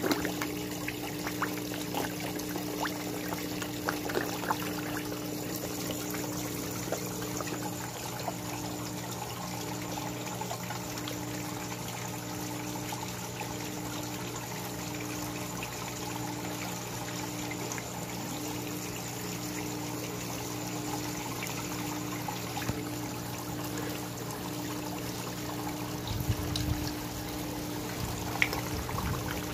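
Small rock waterfall trickling and pouring steadily into a garden koi pond, over a steady low hum. Koi splash briefly at the surface at the very start.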